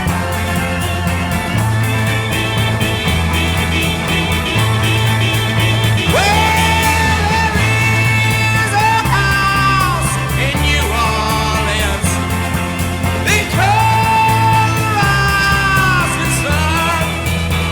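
Rock song with a steady bass and guitar backing, and a male singer's long wailing held notes, the voice swooping up into them about six seconds in and again about seven seconds later.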